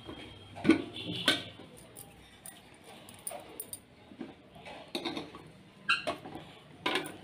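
A few sharp knocks and clinks as an aluminium murukku press is handled on a steel plate while rice-flour dough is pressed into its barrel by hand.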